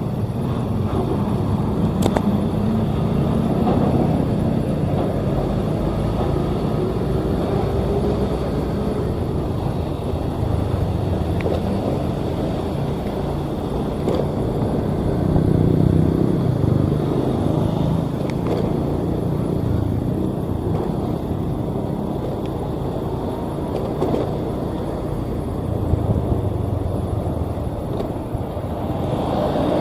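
Vehicle engine and road noise, running steadily and swelling a few times.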